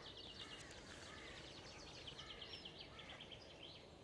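Faint birdsong: a rapid trill of high notes with a few lower slurred calls, fading out near the end, over quiet outdoor background.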